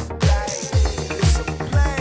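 Background music: an upbeat rap/dance track with a deep, pitch-dropping kick drum about twice a second under a vocal line.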